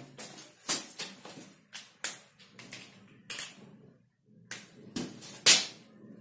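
Whiteboard markers being handled: about six short, sharp clicks and taps spread over several seconds, the loudest near the end as the marker goes to the board.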